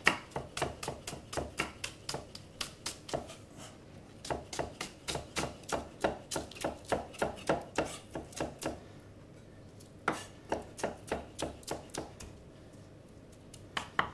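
Kitchen knife chopping spring onions on a thick wooden chopping block: quick, even knocks of the blade on the wood, about four a second. The chopping pauses about nine seconds in, resumes briefly, and stops a couple of seconds before the end.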